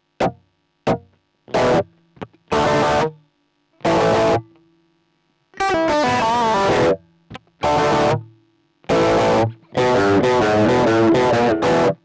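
Electric guitar played through a Boss Dyna Drive DN-2 overdrive pedal, giving a driven, distorted tone. Short stabbed chords come first, then longer held chords and notes, a wavering vibrato note about six seconds in, and a fast run of notes near the end, each phrase cut off sharply into silence.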